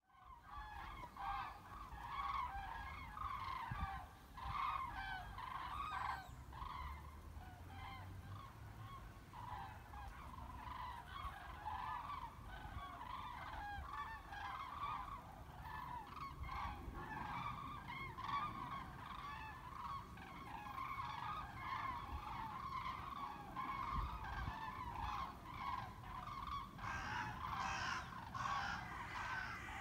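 A large flock of common cranes calling as they fly over in formation: many overlapping trumpeting calls at once, a continuous chorus, with a faint low rumble underneath.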